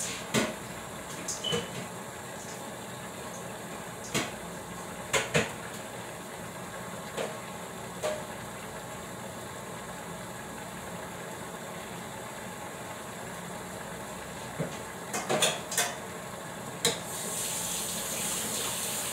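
Scattered light knocks and clinks as things are handled at a kitchen sink while raw meat is cleaned, with the tap running briefly near the end.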